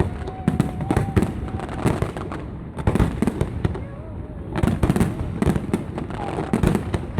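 Fireworks going off in a rapid, irregular barrage of many bangs and crackles.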